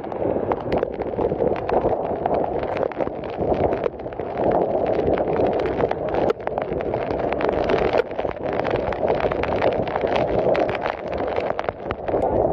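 Heavy rain and strong gusting wind in a storm, a steady loud rush with many sharp clattering knocks throughout.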